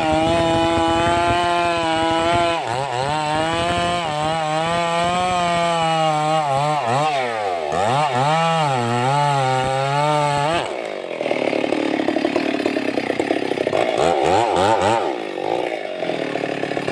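Stihl MS 382 two-stroke chainsaw running at high revs, its pitch dipping and recovering repeatedly as it is loaded in a cut. About ten seconds in it drops to a rough, uneven idle, with one short rev near the end.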